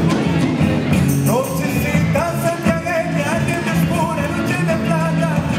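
Live band playing with electric guitars and drums, and singing that comes in about a second in.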